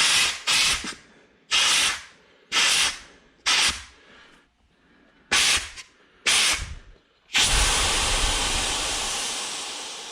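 Compressed air hissing out of an inflatable paddle board's valve: seven short bursts as the valve is worked, then from about seven seconds in a loud steady rush of escaping air that slowly weakens as the board deflates.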